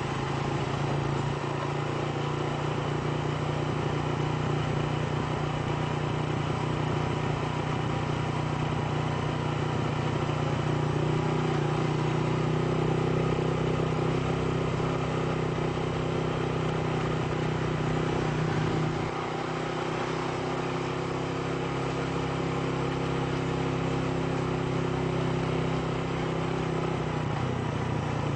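A motor vehicle's engine running steadily while driving, with road noise. A second, higher engine note joins about 11 seconds in and fades near the end.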